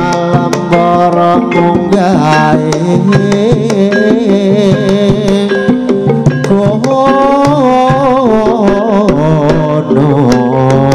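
Live campursari music from a Javanese ensemble: hand-drum strokes keep a steady beat under a wavering melody line, played loud through a PA system.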